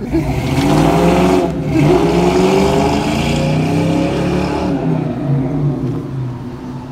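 Car engine revving as a convertible accelerates away down the street; the engine note rises in the first two seconds, holds, then fades toward the end as the car moves off.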